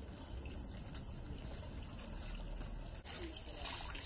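Water trickling from a tap into a plastic basin of leafy greens as the leaves are swished and rinsed in it; the splashing gets louder about three seconds in.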